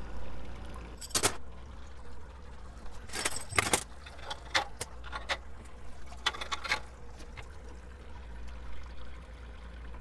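Wort trickling steadily out of a grain basket hoisted above a stainless brew kettle, with sharp metallic clinks and rattles from the basket's handle and the block-and-tackle hardware. There is a clink about a second in, a cluster around three to four seconds, and lighter ones after.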